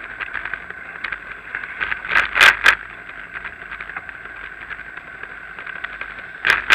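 Ride noise from a bicycle-mounted action camera rolling over paving slabs: a steady rattling hiss full of small clicks. It is broken by two loud bursts of noise, one about two seconds in and one near the end.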